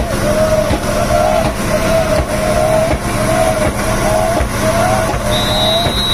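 Snake-boat crew chanting in unison, one short shouted call about twice a second that keeps time with the paddle strokes, over the rush of the boat through the water. A brief high steady tone sounds near the end.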